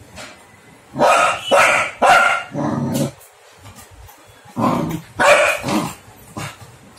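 Labrador puppy barking at an unfamiliar object: a quick run of about four barks a second in, then three or four more a couple of seconds later.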